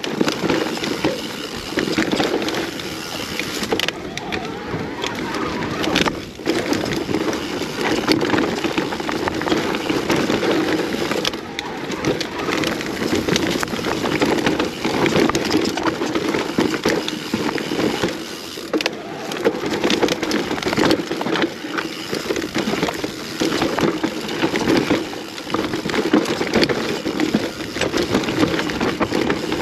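Mountain bike descending a rough enduro trail at speed: continuous tyre rumble over dirt, roots and rocks, with frequent sharp rattling knocks from the bike as it hits bumps.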